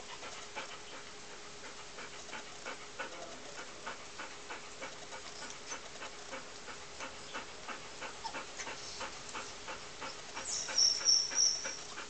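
Puppies panting, with many short irregular clicks; near the end a quick run of high-pitched squeaks, the loudest sound.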